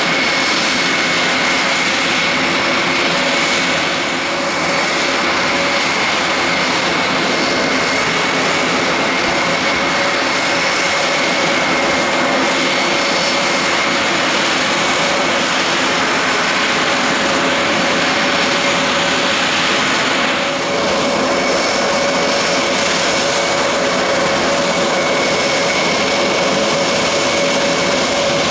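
Aircraft engine running steadily on the ground, a loud even noise with a high steady whine over it.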